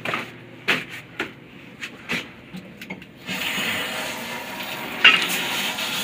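Short crunches and knocks of packed snow against a metal piece held in the hand. About three seconds in, a steady rush of running water starts, with one sharper splash or knock a couple of seconds later.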